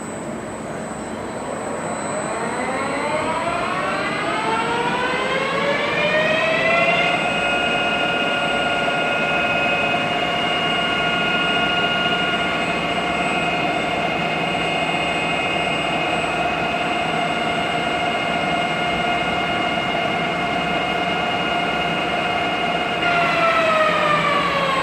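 SUA 125 CNC lathe's spindle drive whining up to speed over the first several seconds, then running at a steady pitch during the finishing pass on a bored hole, and winding down near the end.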